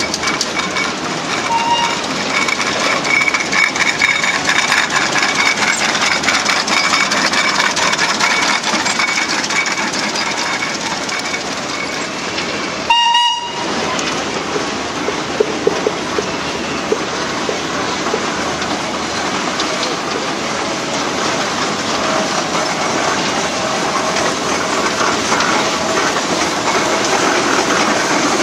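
Steam traction engines driving past, with a steady clanking and hissing mechanical noise. About halfway through comes a short steam-whistle blast, the loudest moment.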